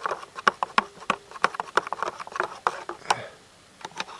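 Hands kneading egg-and-wheat-flour pasta dough: a quick, irregular run of sticky slaps and clicks that stops about three seconds in, with a couple of faint taps near the end.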